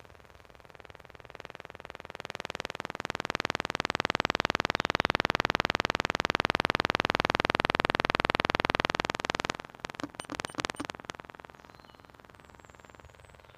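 Jaguar S-Type's boot-mounted satnav unit making a rapid, continuous clicking. The clicking grows louder over a couple of seconds, runs steadily, then breaks into a few separate clicks before stopping.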